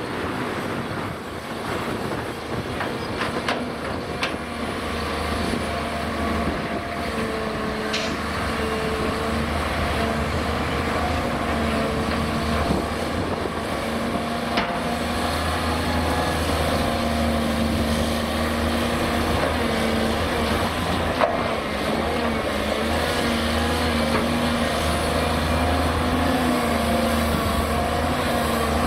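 Cat 330D crawler excavator's diesel engine running under hydraulic load while it digs and loads a tipper truck, its note rising and falling with the work. A few sharp knocks stand out over it, the clearest about 8 and 21 seconds in.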